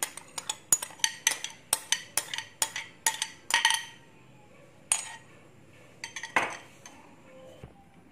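Metal spoon clinking and scraping against a blender jar while batter is poured out: a quick run of sharp clinks, about three a second, for the first four seconds, then a single clink and a short cluster near the end.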